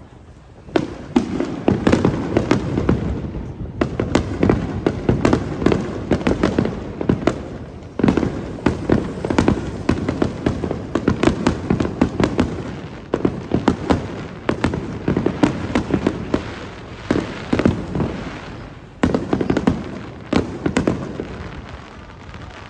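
Fireworks finale: a dense barrage of many shells bursting in quick succession, sharp crackling reports over a continuous low rumble, thinning out near the end.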